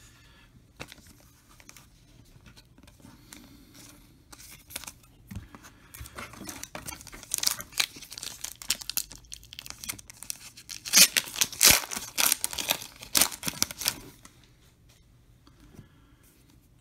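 Foil wrapper of a Topps Star Wars Battle Plans trading-card pack being torn open and crinkled by hand. Quiet for the first few seconds, then a run of crackling rips that grows louder, is loudest about two-thirds of the way through, and stops a couple of seconds before the end.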